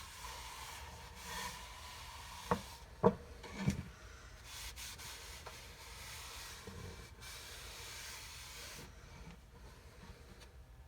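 Something rubbing and scraping against a wooden board, with three sharp knocks about two and a half to four seconds in.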